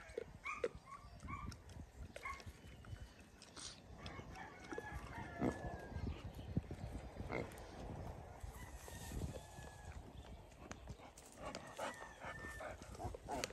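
Pot-bellied pig sow and her piglets grunting and giving short high squeaks while they root and feed in dry grass, with scattered rustles.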